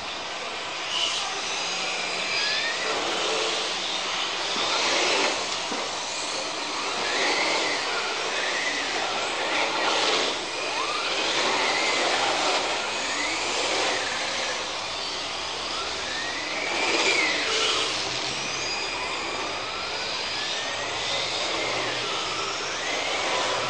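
Radio-controlled touring car being driven, its motor whine rising and falling in pitch again and again as the throttle opens and closes, over a steady hiss.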